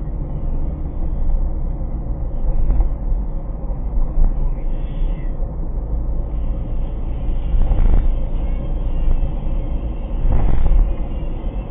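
Steady low rumble of road and engine noise inside a moving car, with a few brief swells in loudness.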